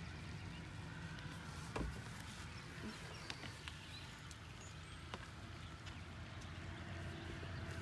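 A few scattered light clicks and knocks, about two seconds in, near the middle and again past halfway, over a low steady hum.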